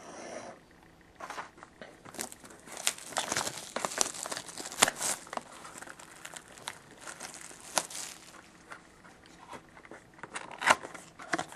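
Cellophane shrink wrap being torn and peeled off a sealed trading-card box: a dense run of irregular plastic crackles and crinkles, thinning out near the end.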